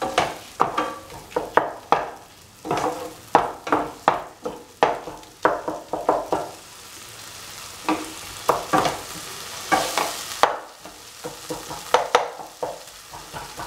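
A perforated spatula stirring and scraping tomatoes, onion and chillies in a frying pan, in short repeated strokes about twice a second, while the mixture sizzles in oil. The sizzle swells briefly about two-thirds of the way through. The tomatoes are being crushed down into a paste as they fry.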